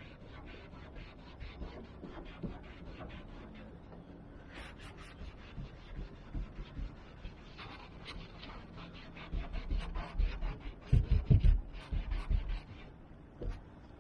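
A cloth scrubbing a van roof with soapy water: quick back-and-forth rubbing strokes, about five a second, cleaning the patches where panel mounts will be bonded. A cluster of heavier low bumps and thumps comes about ten to twelve seconds in.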